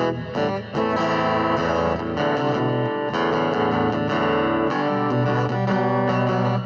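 Music led by an electric guitar played through effects, with held notes over a bass line.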